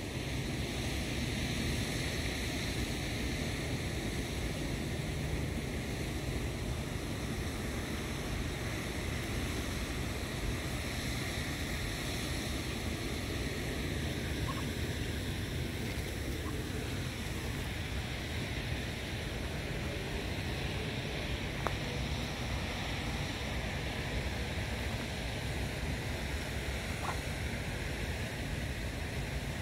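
Steady outdoor background hiss, like wind or distant rushing water, with a few faint brief sounds now and then.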